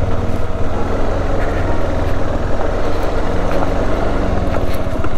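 KTM 390 Adventure's single-cylinder engine running steadily at low trail speed on a dirt track, with scattered small ticks and knocks over the engine note.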